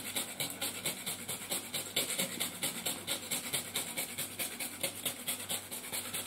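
Hand-twisted nutmeg mill grinding, an even, rapid rasping of about seven clicks a second.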